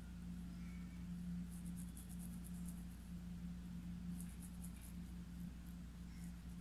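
Faint scratchy strokes of a paintbrush blending acrylic paint on fabric stretched in an embroidery hoop. The strokes come in short runs of quick scratches, over a steady low hum.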